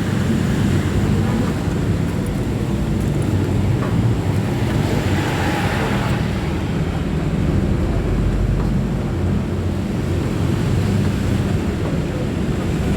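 A Transjakarta bus running, heard from inside the cabin: a steady engine and road rumble, with a brief swell of hiss about five seconds in.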